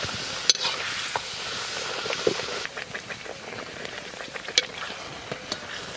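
Palak (spinach) puri deep-frying in hot sunflower oil in a wok, a steady sizzle with scattered small pops and crackles. The sizzle drops a little quieter about two and a half seconds in.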